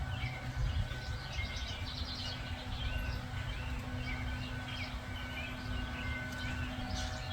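Small birds chirping and twittering in quick short calls throughout, over a low steady rumble.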